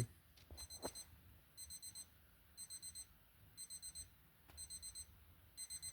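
Electronic alarm clock beeping faintly, a high-pitched beep sounding in quick bursts of four about once a second.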